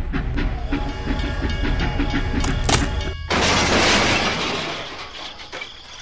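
Music with a rhythmic clicking beat, cut off about three seconds in by a sudden loud crash that fades away over about two seconds as the toy train derails and falls.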